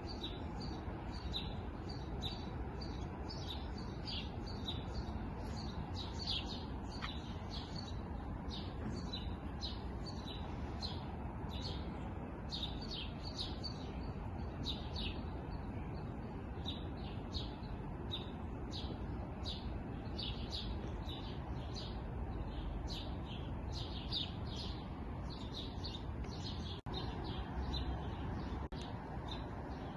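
Small songbirds chirping: a dense run of short, high chirps, several a second, over steady low background noise.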